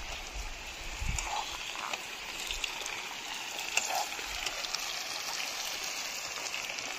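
Shallow stream running over rocks, a steady rushing hiss, with a few light clicks scattered through it.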